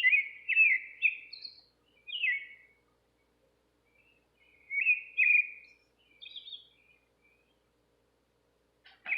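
Nightingale singing: short phrases of clear, down-slurred whistled notes with pauses between them, and a quiet spell near the end.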